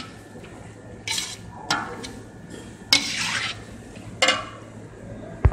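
A spoon stirring chopped peppers and tomato paste in a metal pot, scraping against the pot in four or five separate strokes, with a sharp click just before the end.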